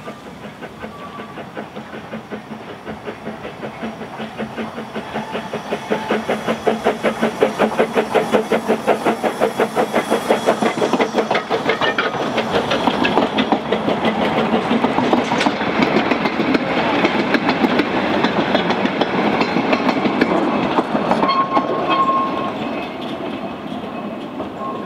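Narrow-gauge 4-4-0 tank steam locomotive working a train past: its exhaust beats come in a steady, rapid rhythm and grow louder as it approaches. The coaches and wagons then clatter by over the rail joints, and the sound fades as the train draws away.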